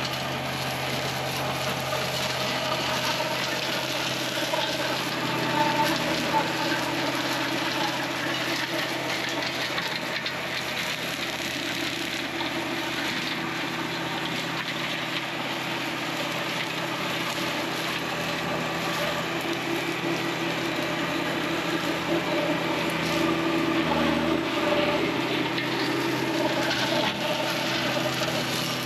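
John Deere 1025R compact tractor's three-cylinder diesel running steadily under load, driving an offset flail mower that thrashes through blackberry vines and brush.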